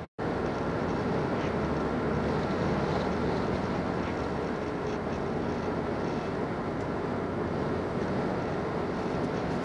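Steady road and engine noise inside a moving car's cabin at road speed, after a split-second dropout right at the start.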